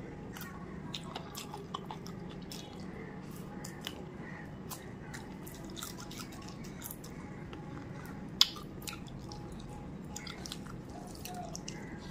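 Close-up chewing and wet mouth sounds of someone eating spicy chicken feet by hand: many small smacking clicks, with one sharp, much louder click about eight seconds in, over a low steady hum.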